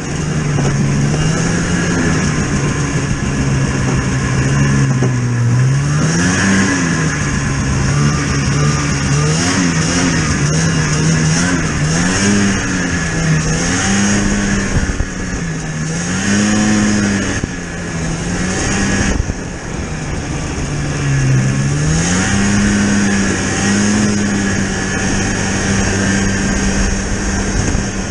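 A vehicle engine running under way, its pitch rising and falling repeatedly with the throttle, then holding steadier near the end.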